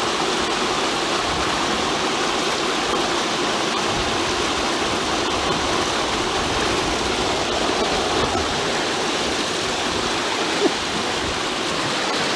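Stream water running steadily over a rock, an even rushing and splashing. One brief sharp tap about ten and a half seconds in.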